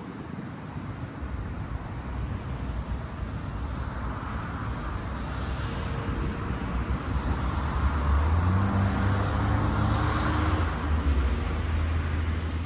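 A motor vehicle on the road approaching and passing: a noisy rush that builds steadily, with a low engine hum coming in about eight seconds in and the sound loudest around ten seconds in.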